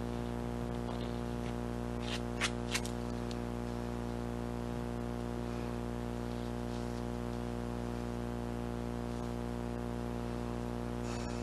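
A steady low hum made of many evenly spaced tones, with two sharp clicks close together about two and a half seconds in.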